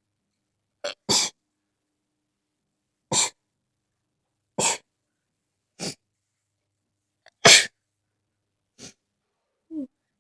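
A person in a sneezing fit: about seven short sneezes in a row, one every second or two, the loudest about seven and a half seconds in.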